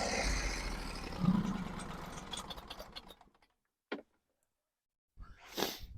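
Portable sawmill's engine running, fading out over about three seconds and then stopping, followed by silence with a single click.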